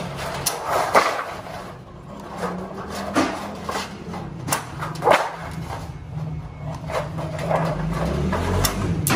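Long-bladed hand shears cutting galvanized steel sheet, bite by bite: a string of sharp metallic crunches about one every half second to a second, over a steady low hum.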